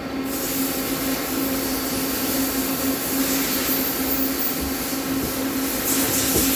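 Mori Seiki CL-150 CNC lathe running a looping program with the spindle turning: a steady hum under a bright hiss, with a brief knock near the end.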